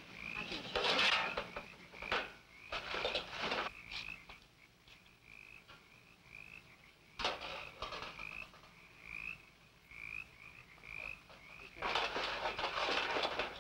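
Hands rummaging through metal trash barrels, with bursts of rustling and rattling rubbish, loudest about a second in and again near the end. Behind it runs a steady high chirping, about two short chirps a second.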